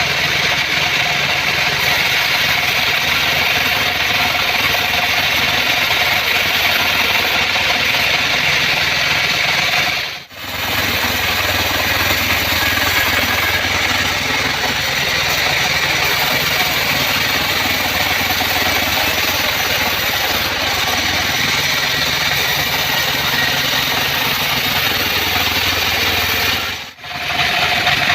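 Portable bandsaw sawmill running steadily, with a continuous mix of engine and blade noise. The sound dips briefly twice, about ten seconds in and near the end.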